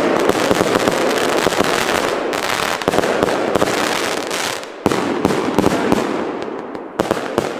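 Aerial fireworks bursting overhead into a dense, continuous crackle. The crackle drops out briefly about five seconds in, comes back, and thins to separate pops near the end.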